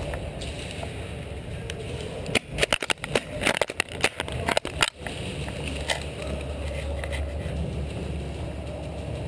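A quick, irregular run of sharp clicks and knocks lasting a couple of seconds, starting a few seconds in, over a steady low hum.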